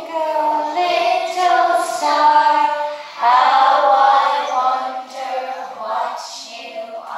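Young children singing a song together, with a short break for breath about three seconds in.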